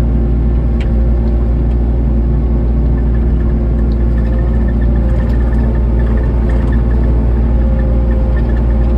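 Kubota SVL90-2 compact track loader's four-cylinder diesel engine running steadily at an even pitch, with a few faint ticks.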